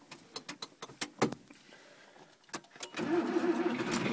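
A series of clicks and knocks from the tractor's controls, then about three seconds in the John Deere 3140's diesel engine starts on a cold start and runs steadily.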